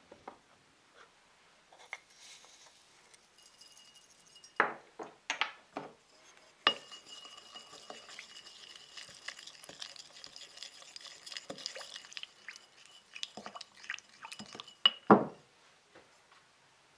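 Wooden spoon stirring a liquid with chili flakes in a glass mixing bowl, scraping on the glass, which rings faintly and steadily under the scraping. A few sharp knocks come before the stirring starts, and one louder knock comes near the end.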